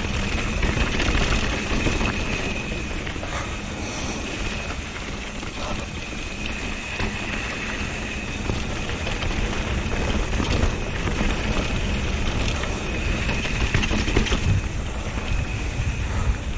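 Mountain bike rolling fast down a dry dirt trail: tyre noise and rumble over the ground with wind buffeting the microphone, a few sharp knocks from bumps, and a thin high whine that comes and goes.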